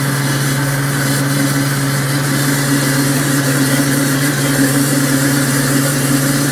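Pampered Chef Deluxe Cooking Blender motor running steadily at speed, blending a strawberry, cream and milk mix into ice cream: a loud, even motor hum with a low steady tone.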